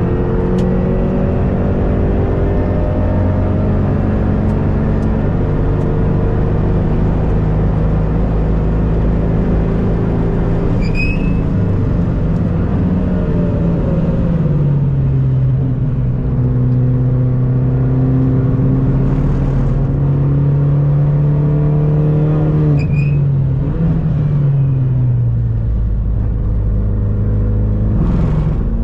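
Hyundai Elantra N's turbocharged 2.0-litre four-cylinder heard from inside the cabin, pulling hard on a race track. The engine note climbs slowly, drops sharply at a dual-clutch gearshift about halfway through, and holds high and steady. It falls away again as the car slows and shifts down near the end.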